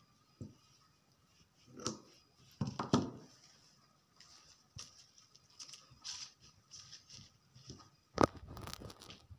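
Scissors cutting fabric and cloth being handled on a table, heard as irregular rustles and snips. A sharp knock about eight seconds in is the loudest sound.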